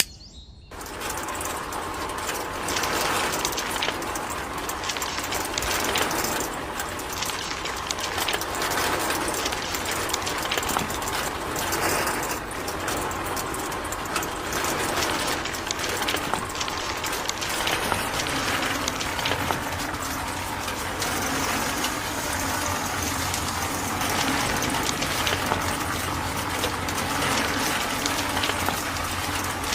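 Small geared DC motor of a DIY model tractor running steadily, its plastic gears whirring and rattling. It starts about a second in.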